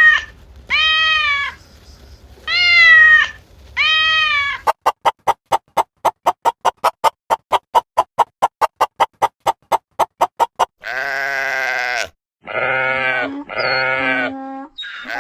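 A run of different animal calls. First come four short calls that each rise and fall, then a fast even series of about five pulses a second lasting some six seconds, then several loud, wavering bleats.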